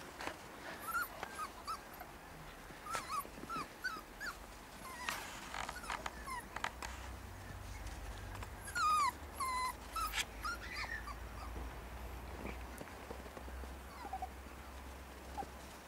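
Puppies yipping and whining in play: a string of short, high calls, thick for the first ten seconds or so and thinning out to a few toward the end.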